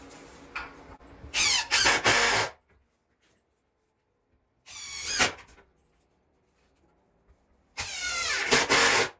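Power drill running in three short bursts, its motor whine rising in pitch as it spins up each time, driving screws into the 2x4 roost frame.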